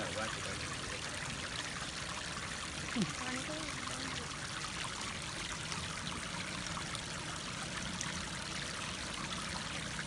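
Water flowing and trickling steadily over a stone Shiva lingam and its base.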